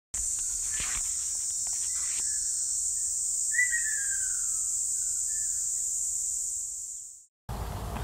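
A steady, high insect-like buzz with a few short bird calls, among them a falling whistle about three and a half seconds in; the buzz fades out near the end and, after a brief silence, low outdoor background noise begins.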